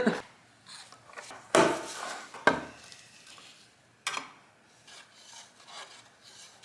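Intermittent scraping and rubbing as stain supplies are handled, loudest in a pair of rasping bursts about one and a half to two and a half seconds in, with a sharp click about four seconds in.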